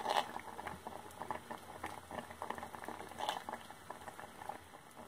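Chopped sorrel leaves (chukka kura) boiling in a pot, a steady stream of small bubbling pops and crackles. The leaves are cooked through.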